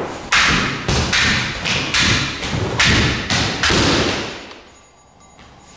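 A real katana whooshing through the air in a rapid run of swings, about two a second, stopping about four seconds in, with thuds of the swordsman's feet on a wooden floor.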